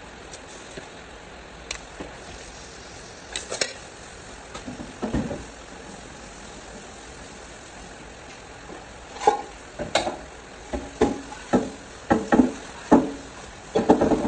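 Meat sizzling in a large metal pot while a metal ladle stirs it, clanking and scraping against the pot. A couple of knocks come early, and from about two-thirds of the way in, a quick, irregular run of clanks and scrapes that are the loudest sounds.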